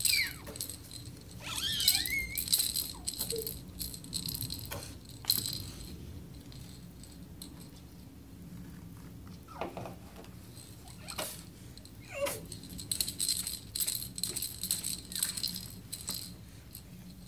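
A toddler's short squeals and vocal sounds, a few times, over the rattling and clicking of a small plastic toy being shaken and handled.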